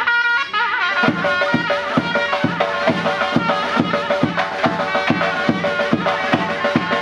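Surnay, the Uzbek double-reed shawm, playing a loud reedy melody. About a second in, a drum joins with a steady beat of roughly two strokes a second.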